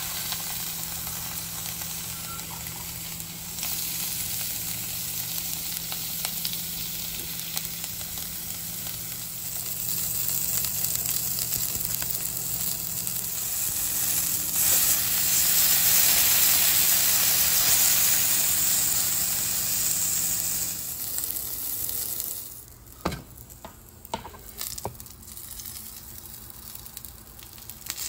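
Teal breast pieces sizzling in hot olive oil in a nonstick frying pan, a steady frying hiss that grows louder midway. The sizzle falls away sharply about four-fifths of the way through, followed by a few light knocks.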